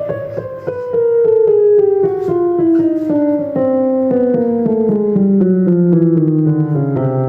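Yamaha DGX-305 digital keyboard sounding a piano voice, its keys played one after another in an even descending run, about four notes a second, down into the bass. This is a key-by-key test after a keyboard repair, with every key sounding.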